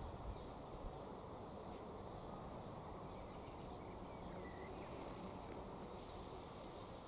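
Faint outdoor field background: a steady low hiss with a few scattered faint high insect ticks and one short faint chirp about four and a half seconds in.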